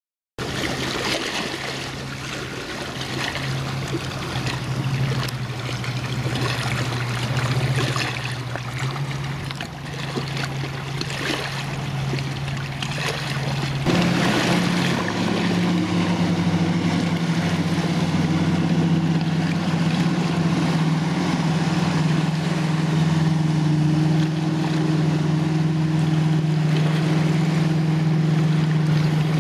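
Motorboat engine running steadily as the boat speeds over the water: a continuous drone whose pitch steps up about halfway through.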